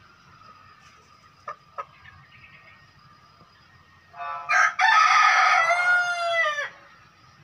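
Native chicken (ayam kampung) rooster crowing once, about four seconds in: a broken, choppy start, then a long drawn-out note that falls at the end. Two short clicks come earlier.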